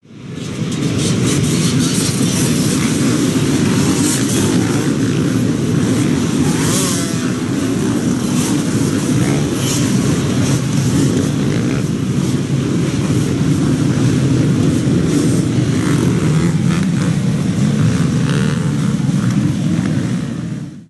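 Several off-road motorcycle engines running and revving together in a dense, steady din. It fades in at the start and cuts off suddenly at the end.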